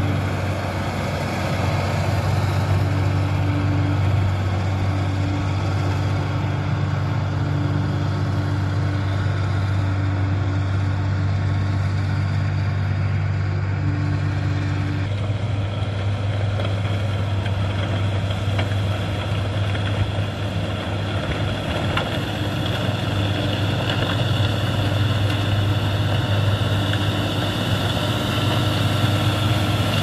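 Motor grader's diesel engine running steadily under load as its blade pushes and spreads gravel, its note changing about halfway through.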